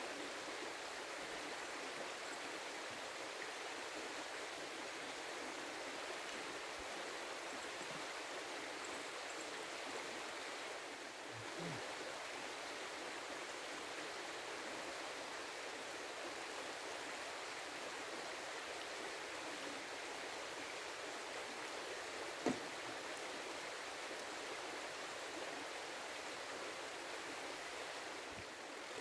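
Shallow, rocky river flowing: a steady rush of running water over stones. A single brief knock sounds about three-quarters of the way through.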